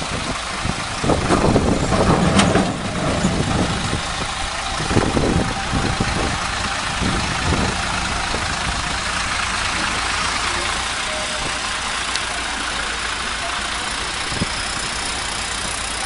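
Heavy diesel engine idling steadily, with a few louder irregular surges in the first several seconds.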